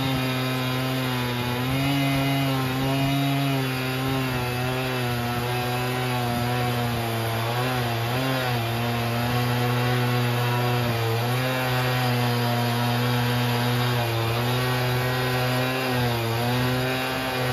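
Stihl MS 880 two-stroke chainsaw in a Logosol F2 chainsaw mill, running flat out under load as it rips a slab along a spalted yew log. The engine note holds steady and dips briefly a couple of times as the cut loads it.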